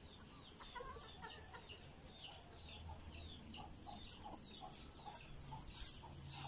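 Faint clucking of domestic chickens, with small birds chirping over and over in the background.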